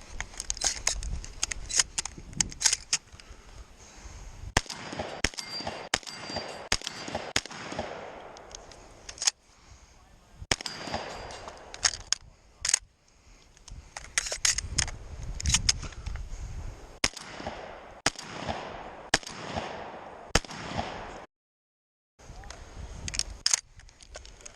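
Shotgun shots fired in quick strings, several close together, then pauses with handling and movement noise between. The strings repeat across the stretch.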